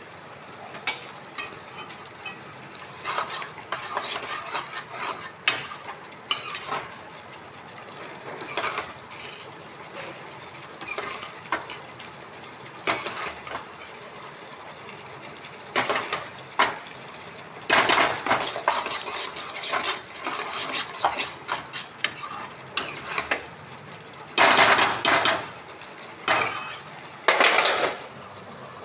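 A metal utensil stirring and scraping in a cooking pan, with irregular clatters and scrapes against the metal, several of the loudest ones late on, over a steady low hiss.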